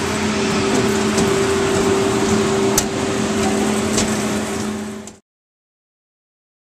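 Carnival ride machinery running, heard from a rider's seat: a steady two-note mechanical hum over a noisy rush, with a couple of sharp clicks. It cuts off suddenly about five seconds in.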